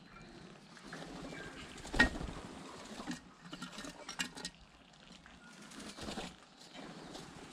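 Tui landing and feeding at a glass bowl: bursts of wing flutter and scuffling, with sharp knocks on the bowl and rail. The loudest knock comes about two seconds in, and another just after four seconds.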